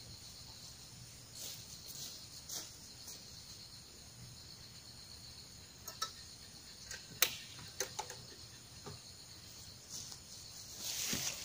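Faint, steady chirring of insects. Several sharp clicks or taps come between about six and eight seconds in, and a louder rustle starts near the end.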